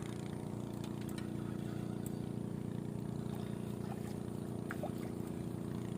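An engine running steadily at an even pitch, a low continuous hum that neither rises nor falls.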